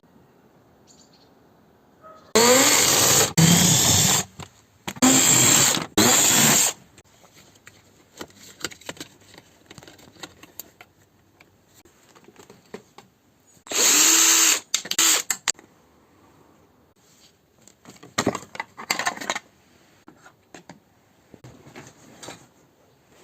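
A small power tool run in four short bursts of one to two seconds each, its pitch shifting as it speeds up and loads, with light clicks and handling noise in between.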